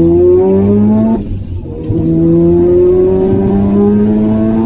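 Single-turbo Mazda RX-7 FD3S's 13B twin-rotor rotary engine pulling hard under full throttle. The pitch climbs steadily, breaks off for an upshift about a second in, then climbs again through the next gear, with a faint high turbo whine rising along with it, heard from inside the car.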